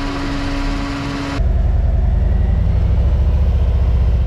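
Harley-Davidson Road King Special V-twin motorcycle cruising at motorway speed: wind and road noise with a steady hum, then, about a second and a half in, an abrupt switch to a deep, loud engine rumble.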